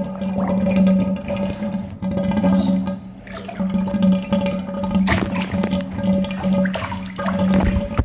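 Bathtub water sloshing and splashing as a hand puppet is swished through it, in uneven surges with sharper splashes, over a steady low hum.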